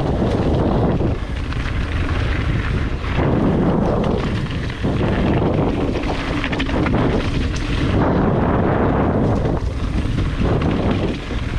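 Wind buffeting an action camera's microphone during a fast mountain-bike descent, a loud rumbling rush that swells and dips every second or two. Beneath it, the tyres roll over the trail and the full-suspension bike gives off scattered knocks and rattles.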